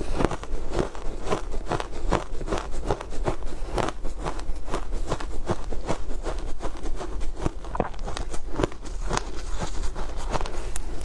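Powdery matcha shaved ice being chewed: a steady run of soft, crackly crunches, about three or four a second.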